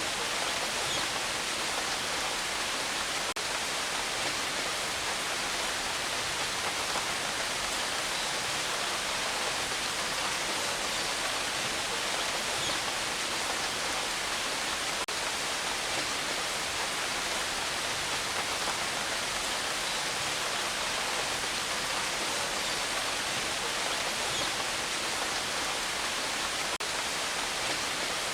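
Rain falling steadily, an even hiss with no single drops or changes standing out.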